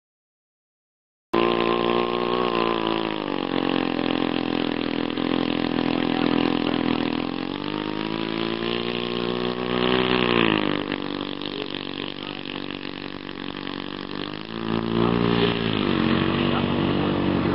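Engine of a large scratch-built RC model Loening amphibian biplane running as it taxis on grass. It cuts in about a second in, and its pitch drops and rises several times with the throttle.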